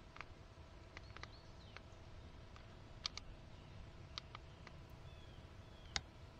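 Faint, irregular clicking of a hat-mounted camera's (lid cam's) buttons being pressed in an attempt to switch it on. There are about ten clicks, the sharpest about three seconds in and near the end.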